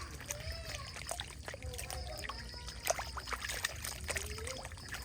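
Water splashing and trickling with many small clicks, and a few short calls that rise and fall in pitch.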